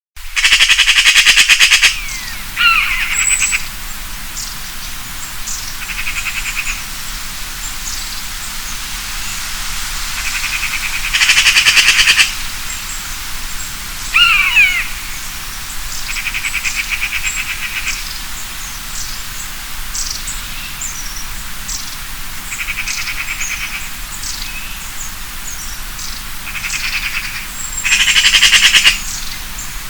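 Birds calling in a natural soundscape. Short, fast pulsed trills repeat every few seconds, loudest at the start, around eleven seconds and near the end. Two falling whistled calls and many short, high chirps come in between.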